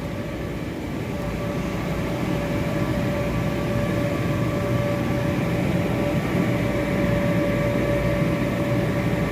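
Steady hum and rush of the electric air blowers that keep inflatable bounce houses and slides inflated, with a constant tone and no change.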